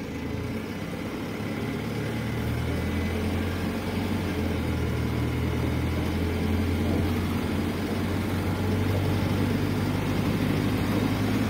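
PAZ 320414-05 bus engine heard from inside the passenger cabin as the bus pulls away from a stop and gathers speed, its note stepping up and growing louder.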